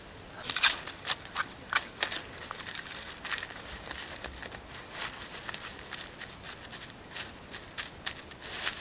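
Dry pine needles crackling and rustling as hands push them aside and a small stick scrapes in the soil around a sapling. Irregular sharp crackles, loudest in the first two seconds.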